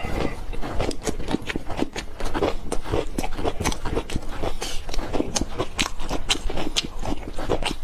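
A person eating spicy noodles close to the microphone: chewing and mouth sounds made of many quick, irregular wet clicks.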